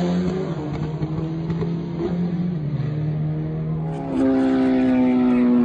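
Drag-racing motorcycle engine running hard at high revs, its pitch holding nearly steady with small dips. About four seconds in, a louder engine takes over, its pitch slowly falling.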